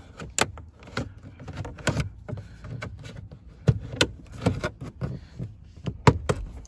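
Plastic dashboard trim of a 2018 Honda Pilot being pried loose with a plastic trim removal tool: a series of sharp clicks and knocks as the panel and its retaining clips flex and pop, with rubbing and scraping of plastic between them.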